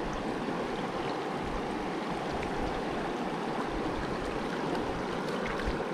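Small mountain creek running: a steady rush of flowing water.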